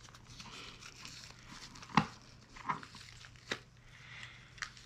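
Handling of a large plastic fashion doll while it is dressed: soft rustling of its clothes with four sharp plastic clicks, the loudest about two seconds in.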